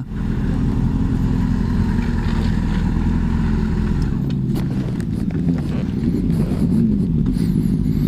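Suzuki Bandit motorcycle's inline-four engine running at low revs as the bike slows and rolls to a stop, with a change in the engine note about four seconds in.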